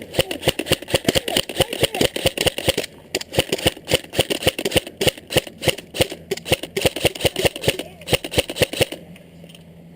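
Airsoft gun firing long rapid strings of sharp clicking shots, several a second, which stop about a second before the end.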